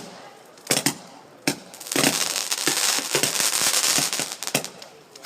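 Multi-shot firework going off: a few sharp bangs, then a dense stretch of crackling lasting two to three seconds that fades out, with another bang right at the end.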